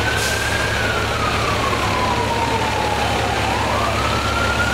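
An emergency vehicle's siren wailing, its pitch sliding slowly down and then rising again near the end, over a steady low rumble.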